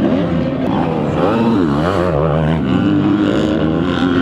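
Several motocross bike engines revving, their pitch rising and falling as the riders work the throttle over the jumps, with more than one engine heard at once. Near the end one engine holds a steadier pitch.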